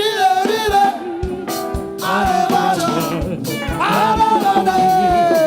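Gospel music with a singer's voice over a steady drum beat.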